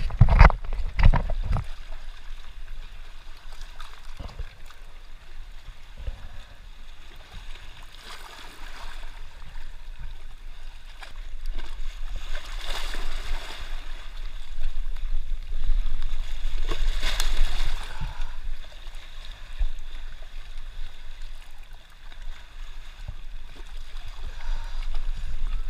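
Shallow sea water washing and splashing over shoreline rocks, swelling louder twice, with a few sharp knocks in the first couple of seconds and a steady low rumble underneath.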